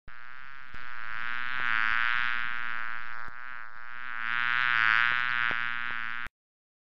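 A bee buzzing close by in one continuous drone that wavers slightly in pitch and swells twice, then cuts off suddenly about six seconds in.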